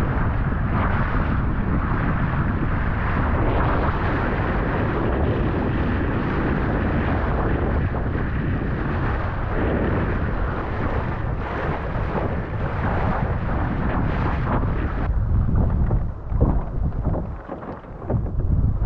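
Wind buffeting the microphone over water rushing along a small sailboat's hull. About fifteen seconds in the wind noise eases and a few sudden loud flaps and knocks come through as the sail cloth is handled at the mast.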